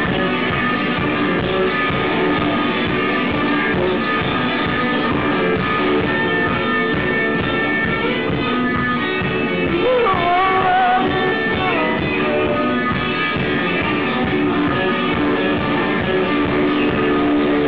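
Guitar-led rock music played by a band, with a steady beat. About ten seconds in, a high wavering line bends up and down over the music for a couple of seconds.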